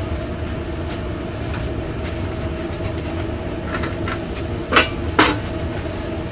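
Steady hum of food-trailer kitchen equipment, with two short clatters of cookware about half a second apart near the end.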